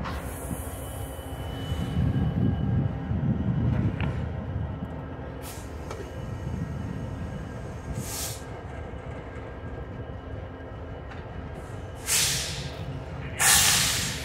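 Norfolk Southern diesel-electric locomotive pulling a covered hopper at low speed, its engine and wheels on the rails making a low rumble that is loudest about two to four seconds in. Short bursts of hiss come near the end, the loudest just before it ends.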